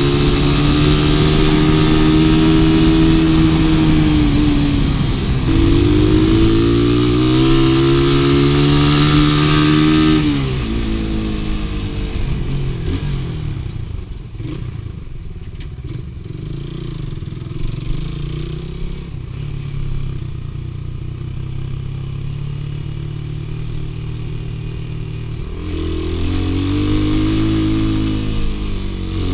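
Suzuki Raider 150 (Satria FU150) single-cylinder four-stroke engine revving up through the gears, with a gear change about five seconds in. About ten seconds in the throttle closes and the engine drops to a low, quieter run for about fifteen seconds, then revs up again near the end.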